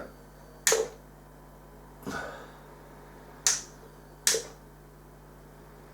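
Four sharp, short clicks, irregularly spaced, over a faint steady hum.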